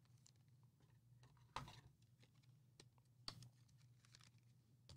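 Near silence with a few faint clicks and short rustles, about a second and a half in, about three seconds in and near the end: trading cards being handled in the hands.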